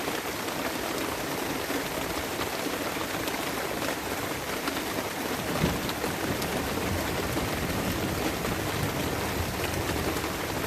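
Steady rain falling in a thunderstorm, with a single sharp tap a little past halfway and a low rumble of thunder building in the second half.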